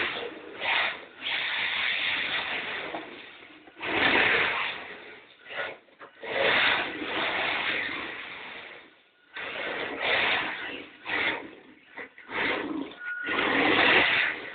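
HSP Flying Fish RC drift car on a hard floor: its 21-turn electric motor whirring and its tyres sliding in short throttle bursts of a second or two, with brief pauses between them.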